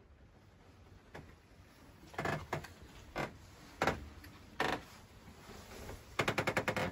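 Knocks and creaks from moving about inside a campervan's fitted cabinetry: several separate knocks, then a quick rattle of about ten clicks near the end.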